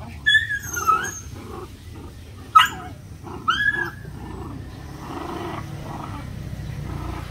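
Puppies yelping and whining in rough play. A few high cries fall in pitch in the first second, a sharp yelp comes about two and a half seconds in and another cry a second later, then softer low growling follows.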